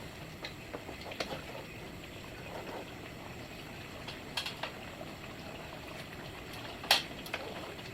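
Chicken afritada cooking in a pan on the stove, giving a steady bubbling hiss. A few sharp clicks sound over it, the loudest about seven seconds in.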